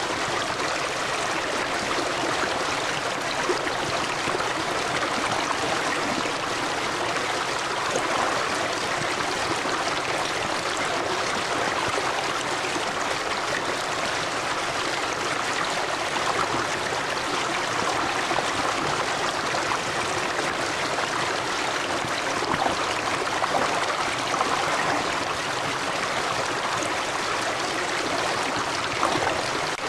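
River water running over stones, a steady rushing and babbling with small splashes throughout.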